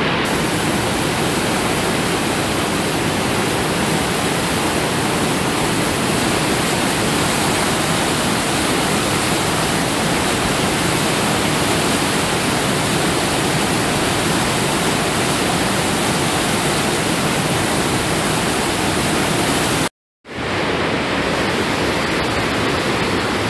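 Fast mountain river rushing through whitewater rapids: a steady, loud rush of water. It breaks off for a moment about twenty seconds in, then comes back slightly duller.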